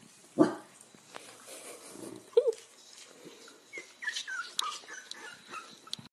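Newborn corgi puppies squeaking and whimpering in short, high cries, several falling in pitch, with a brief louder thump about half a second in.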